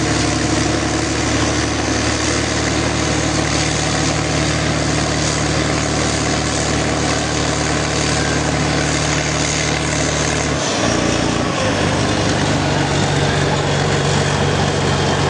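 Heavy eight-wheeled military truck's diesel engine running steadily under load as it pulls a heavy trailer through sand; its note shifts suddenly about eleven seconds in and then holds steady again.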